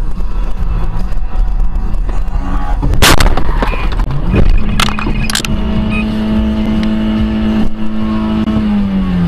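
Car crash: steady engine and road noise, a loud impact about three seconds in and two more sharp bangs a couple of seconds later, then a long steady horn-like tone that falls in pitch near the end.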